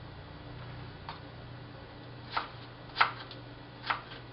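A ceramic knife chopping red onion on a plastic cutting board: a faint tap about a second in, then three sharper knocks in the second half, the middle one loudest.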